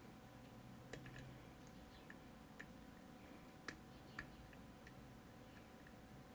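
Faint, irregular clicks of a deeper hook pick working the pins inside a Trioving Twin Control lock during single-pin picking: about eight sharp ticks spread over a few seconds, with near silence between them.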